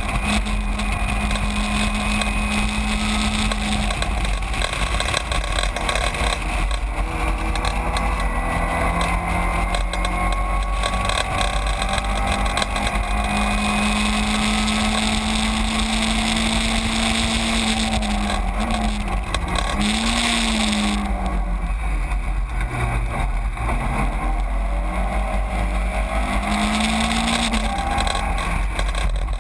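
Caterham 7 race car engine heard from its own open cockpit, running hard at fairly steady revs. In the second half the engine note dips and recovers several times, falling furthest about two-thirds of the way through before climbing again.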